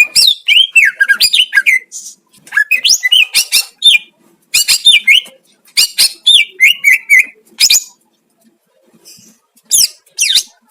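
Cucak ijo (green leafbird) singing: quick runs of varied whistles and chirps that slide up and down in pitch, delivered in bursts with short pauses between them and a longer pause near the end.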